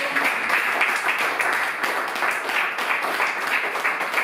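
Small audience applauding steadily, many hands clapping at once.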